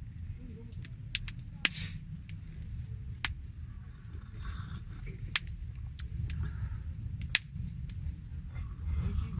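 Wood campfire crackling: several sharp pops scattered over a low, steady rumble.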